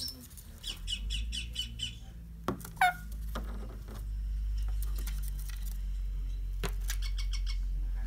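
Indian ringneck parakeet chattering: a quick run of short chirps, a single downward-sliding call about three seconds in, and another brief run of chirps near the end. A couple of sharp taps sound between them, over a low steady hum.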